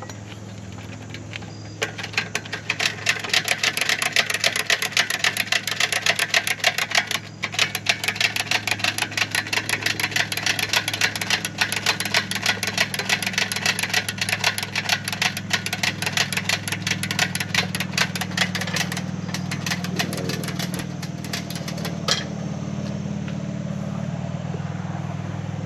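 An engine idling steadily, with a fast, dense clicking rattle over it that starts about two seconds in and stops about three-quarters of the way through. One sharp click follows a few seconds later.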